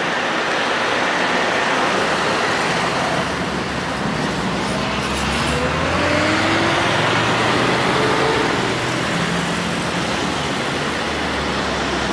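Street traffic noise: a steady wash of road noise with a vehicle engine running, its pitch rising about halfway through as it pulls away.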